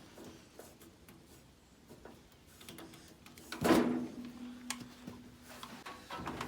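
Scattered clicks and light metal knocks of a cordless grease gun being handled between grease fittings, with one louder knock about three and a half seconds in. A faint steady hum follows it for about two seconds.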